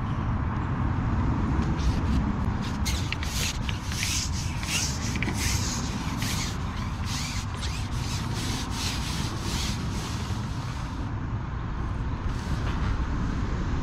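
A run of short rubbing, rustling strokes, about two or three a second, starting a few seconds in and stopping near the end, over a steady low rumble.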